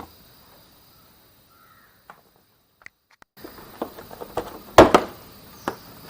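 Hands and tools working a motorcycle's plastic side cover loose, heard as a handful of sharp clicks and knocks. They start after about three seconds of near silence, and the loudest knock comes about five seconds in.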